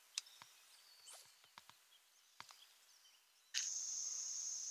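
Faint outdoor quiet with a few scattered light clicks and knocks. About three and a half seconds in, a loud, steady, high-pitched insect chorus starts abruptly, as on a summer lakeshore.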